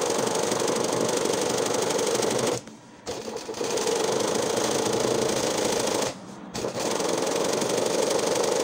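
Sewing machine running fast and steadily, stitching machine embroidery on hooped cloth. It stops briefly twice, once a little under three seconds in and again about six seconds in, then picks up again.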